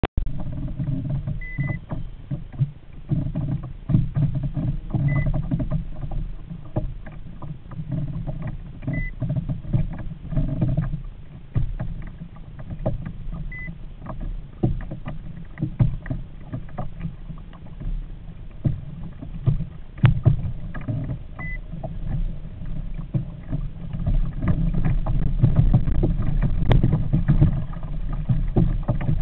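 Noise from a fishing kayak on the water, with a bent rod under load: a continuous low rumble with irregular knocks and clicks from handling. A short high beep sounds five times, at uneven intervals.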